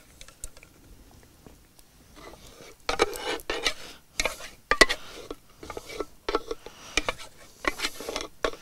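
Small metal pot scraped out and knocked over a clay dish as a thick creamy topping is emptied from it: a run of clinks and scrapes starting about three seconds in.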